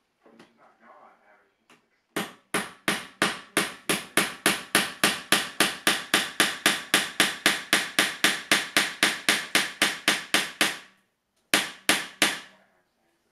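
Hammer driving a hand-forged steel drive hook in: a fast, even run of sharp taps, about four a second, for some nine seconds, then a short pause and three final blows.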